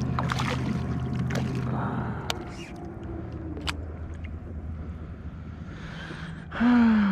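A steady low motor drone, dropping lower about two seconds in, with scattered light clicks and taps. A man's voice cuts in loudly near the end, falling in pitch.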